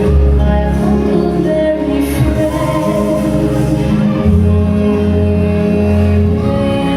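Ballroom dance music with a singer, played loud over a hall's sound system, with long held bass notes and drawn-out sung lines.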